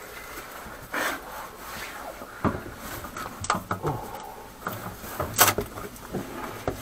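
Handling noise under a sink: rags and a flashlight shoved across the floor, and gloved hands rubbing and knocking against the corrugated plastic drain hose and the cabinet, with scattered scrapes and short knocks. The sharpest knock comes about five and a half seconds in.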